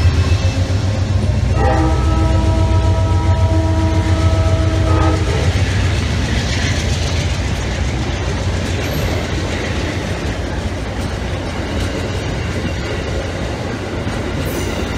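An Amtrak diesel locomotive rumbles past at close range, followed by stainless-steel passenger cars rolling by with steady wheel-on-rail noise that slowly fades. About one and a half seconds in, a multi-note train horn sounds for nearly four seconds.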